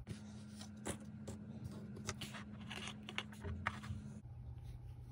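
Faint, irregular clicks and rustles of fabric being handled and sewing clips being added along the band, over a low steady hum that stops about four seconds in.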